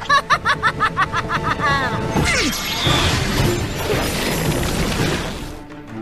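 A cartoon villain's cackling laugh, a quick run of 'ha-ha' syllables over dramatic orchestral music, lasting about two seconds. It gives way to a loud, noisy crash-like magic sound effect that lasts a few seconds and then fades.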